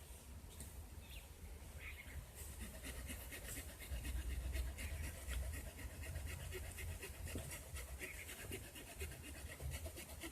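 The small saw blade of a Leatherman Sidekick multi-tool cutting into a fresh green branch, a steady run of quick back-and-forth rasping strokes that picks up about two seconds in.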